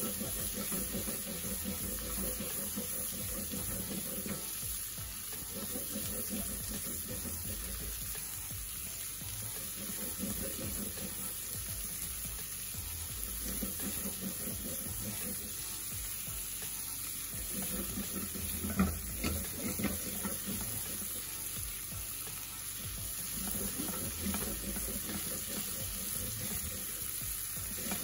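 Diced capsicum, onion and tomato sizzling in oil in a heavy cast iron kadai over a high flame, stirred and scraped steadily with a spatula. One sharper knock of the spatula against the pan about nineteen seconds in.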